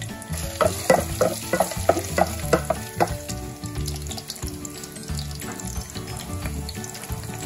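Chopped ginger and garlic sautéing in hot oil in a stainless steel pot, sizzling and crackling. There is a run of louder pops in the first three seconds.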